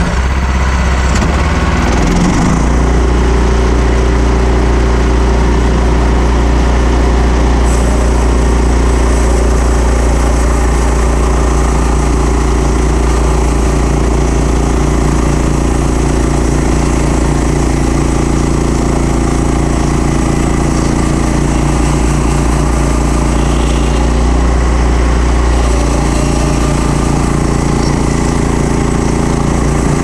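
Portable bandsaw sawmill's engine running steadily under load as the band blade saws along a black cherry log. The engine note changes about two seconds in, as the blade enters the cut.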